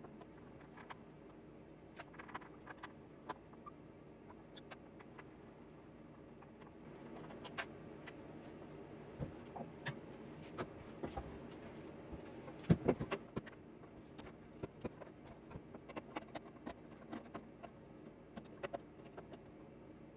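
Faint, irregular clicks and knocks from hand work on an old wooden chest, over a low steady background, with a louder knock about two-thirds of the way through.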